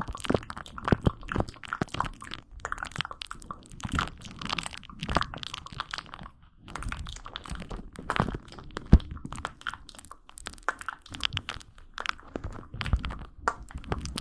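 Close-miked ASMR trigger sounds: a dense, irregular run of crunching, crackling and clicking, dipping briefly just after the middle.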